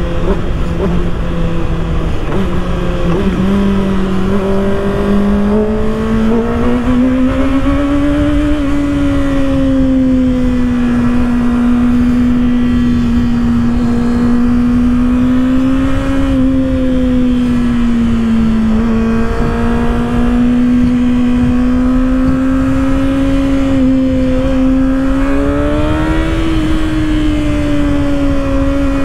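2024 Kawasaki ZX-6R's 636 cc inline-four engine running at cruise on the road, its note climbing a few times as the throttle is rolled on and otherwise holding steady, with wind noise underneath.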